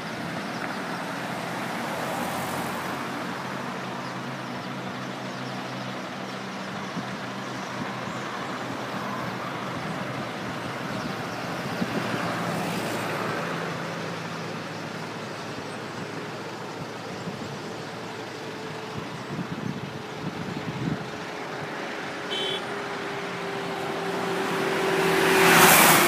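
Road traffic: a steady rush of cars and engine hum, with one vehicle passing close and loud near the end.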